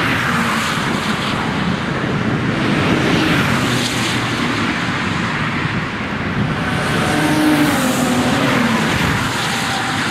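Road cars driving past at speed on a race track one after another, a continuous engine and tyre roar whose engine notes rise and fall as each car approaches and passes.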